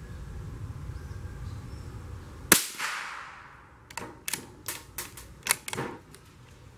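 A single .22LR shot from a CBC 8022 bolt-action rifle, a sharp crack with a short echo dying away, about two and a half seconds in. It is followed a second later by a quick run of about seven sharp clicks as the bolt is worked to eject the case and chamber the next round.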